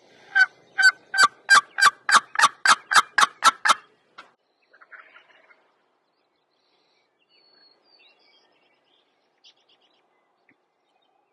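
A run of about eleven loud turkey yelps, evenly spaced about three a second, building in strength over some three seconds, followed by a few faint scattered bird chirps.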